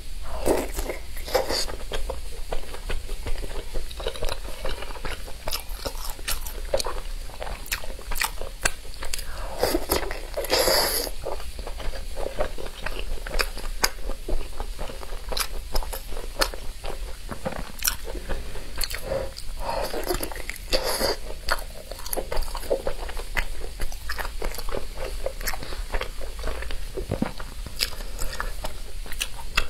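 Biting and chewing soft rice sausage, heard as a steady stream of many small wet mouth clicks.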